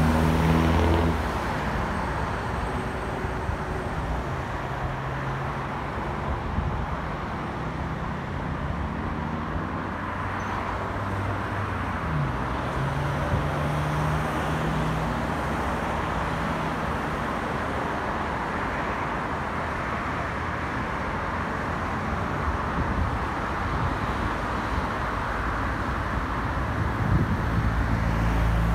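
Distant steady roar of an Airbus A330-243F freighter's Rolls-Royce Trent 700 jet engines climbing out overhead, mixed with road traffic. Road vehicle engines pass near the start, around the middle and near the end.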